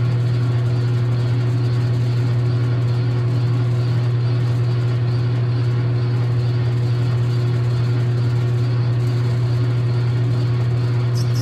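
Logan 6560 lathe running steadily with a strong, even low hum, its chuck spinning a nylon bar.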